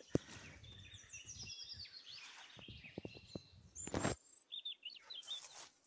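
A small songbird sings a quick descending run of high chirps, with a few more chirps near the end. Under it, footsteps crunch and rustle through dry leaf litter and twigs, with one louder crackling rustle about four seconds in.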